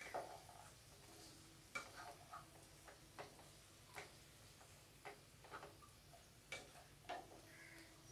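Faint, irregular clicks and scrapes of a wooden spatula against a non-stick kadhai as diced potatoes and capsicum are stirred, about one or two strokes a second.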